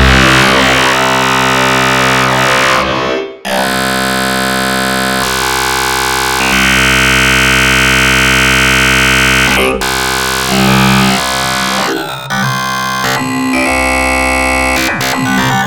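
Dark MIDI remix of a Samsung ringtone: dense, distorted synthesizer chords stacked into a noisy wall of sound. The wall breaks off sharply about three seconds in, then shifts in blocks between sustained chords and choppy, stuttering passages.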